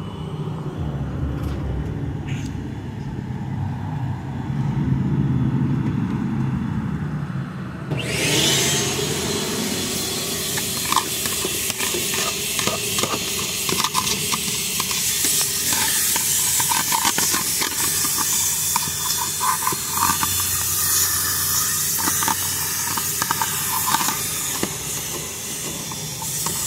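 Car wash vacuum hose sucking air at the nozzle: a loud, steady rushing hiss that sets in suddenly about eight seconds in, with scattered clicks and rattles as it works the floor.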